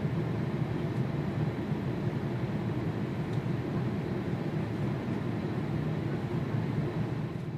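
Steady, low rushing noise of an airliner cabin in flight, the even drone of air and engines heard from inside.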